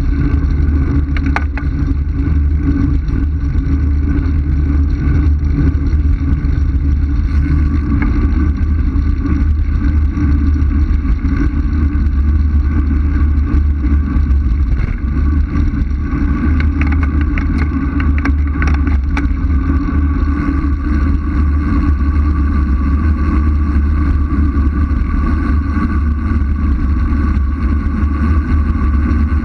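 Wind buffeting the microphone of a bike-mounted camera on a fast road descent: a loud, steady low rumble with a few short clicks, one near the start and several just past the middle.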